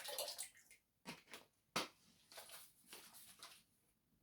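Faint clicks and rustles of cleaning-product bottles being handled, with one sharper click a little under two seconds in.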